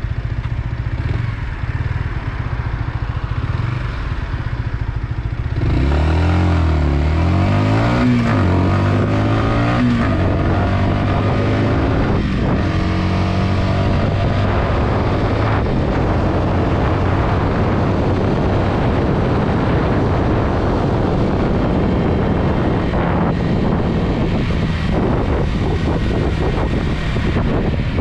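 Yamaha XSR125's 125 cc single-cylinder four-stroke engine running steadily, then accelerating hard about six seconds in. The engine note climbs and drops through several quick gear changes before settling into a steady cruise.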